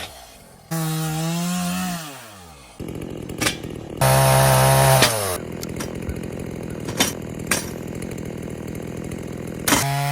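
Two-stroke chainsaw revving up in short bursts, its pitch sliding down each time it drops back to a lower, steady idle. Two bursts are heard, with a few sharp clicks or knocks while it idles between them, and a third rev-up begins at the very end.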